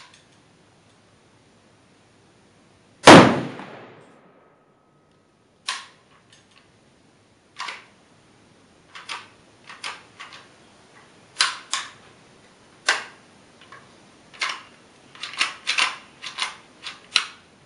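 A single shot from an Arsenal SLR-106UR 5.56 AK pistol about three seconds in, loud and echoing through the indoor range for about a second. On this round the fire control group comes apart, the hammer pin working free. Over the last ten seconds a string of sharp metallic clacks and clicks follows as the jammed action is worked by hand.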